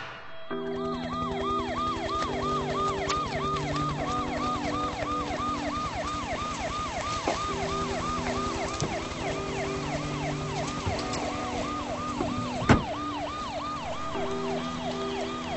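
Police car siren in fast yelp mode, a quick rising-and-falling whoop about three times a second, over low held tones. A single sharp knock late on.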